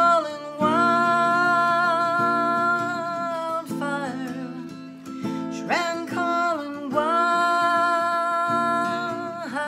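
A woman singing two long held notes, sliding up into each one, over her own acoustic guitar accompaniment.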